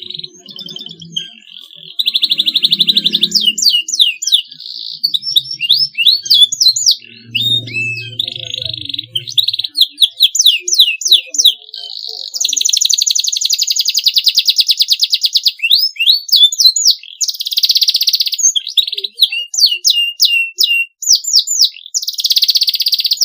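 Domestic canary singing a long, continuous song: rapid buzzing trills, one held for several seconds about halfway through, alternating with quick rising and falling whistled notes.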